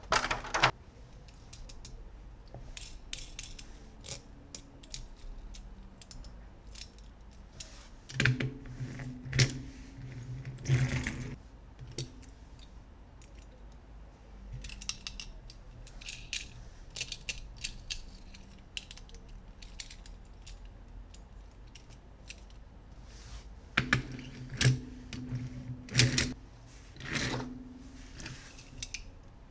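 Plastic toy pieces being handled, with scattered clicks and rattles and two busier stretches of clicking over a low hum, about a third of the way in and near the end.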